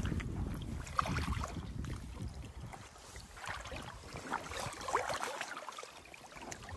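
Wading footsteps through shallow river water: irregular splashing and sloshing of legs and boots in the current, over a low rumble that fades out about halfway through.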